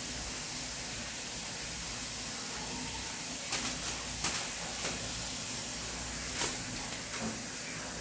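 Quiet room tone: a steady low hiss with a few faint, short clicks in the second half.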